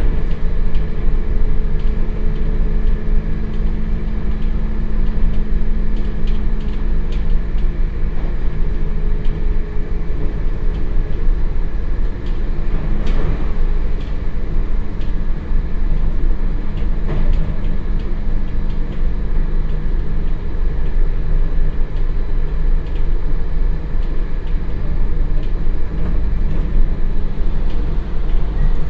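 Onboard running noise of a JR Hokkaido 721 series MoHa 721 motor car coasting on an AC electrified line: steady rumble of wheels on rail with a steady low electrical hum, the 50 Hz AC train drone that the uploader suspects comes from the transformer. Faint rail clicks come and go, with one louder knock about 13 seconds in.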